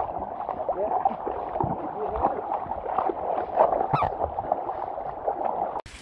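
Muffled, indistinct voices over a steady rush of waterfall water, heard through a phone microphone with water inside it. The sound breaks off abruptly near the end.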